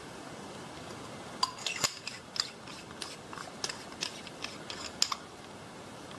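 A run of sharp clicks and light metallic clinks, about a dozen in four seconds, over a steady hiss.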